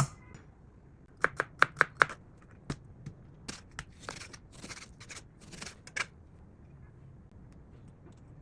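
Knife chopping food on a cutting board: a quick run of five sharp strokes about a second in, then scattered lighter taps and rustling.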